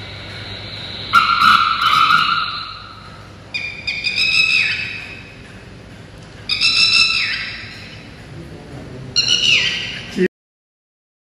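Recorded calls of a red-wattled lapwing played over an exhibit's speaker: three loud, sharp calls of quick falling notes about three seconds apart, after another bird call about a second in. The sound cuts off suddenly near the end.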